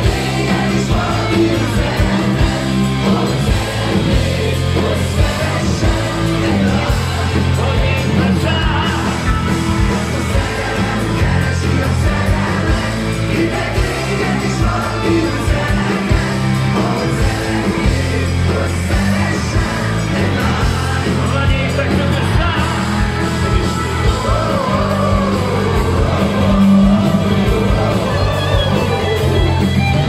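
Live rock band performing loud and amplified: a male singer over electric guitar, bass and keyboards.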